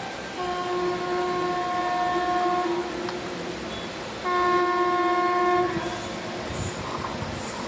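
Locomotive air horn sounded in two long blasts, the first about two seconds and the second, louder one about a second and a half, over the steady running noise of the train. A low rumble builds near the end as an oncoming train closes in.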